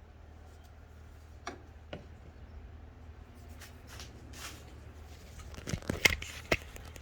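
A few scattered clicks and knocks, then a quick cluster of louder knocks about six seconds in, over a low steady hum.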